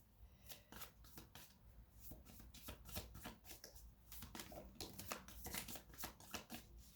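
A tarot deck being shuffled by hand: a faint, quick, irregular run of soft card clicks and slides.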